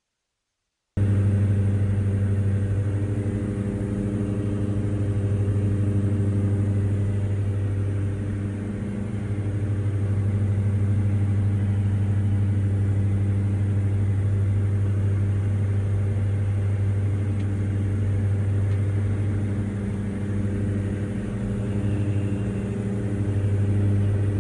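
Diamond DA62's twin Austro turbodiesel engines and propellers droning steadily as heard in the cockpit, a loud low hum with slight swells in level. It cuts in suddenly about a second in.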